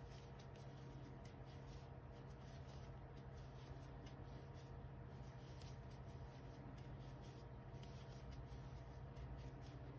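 Faint rustling and small scratchy ticks of a metal crochet hook pulling yarn through stitches, over a steady low hum.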